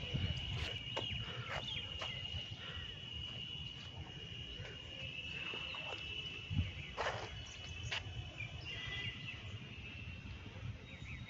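A steady high-pitched insect drone, breaking up into shorter chirps after about seven seconds, over low rumbling background noise with a few scattered clicks.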